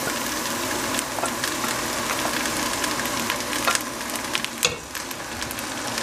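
Chopped vegetables frying in hot oil in a stainless steel pot, a steady sizzle with scattered clicks. A ringing metal clink about three-quarters through.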